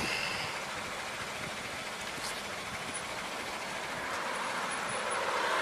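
Steady road traffic noise, growing louder near the end as a vehicle goes by.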